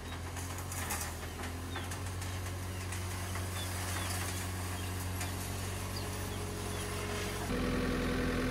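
Diesel engine of a Cat 277C compact track loader running steadily at idle, a low even hum that grows louder near the end, with scattered light clicks over it.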